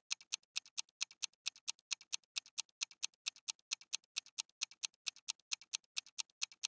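Clock-like ticking, crisp and evenly spaced at about five ticks a second, most likely a ticking sound effect laid over the sped-up unboxing.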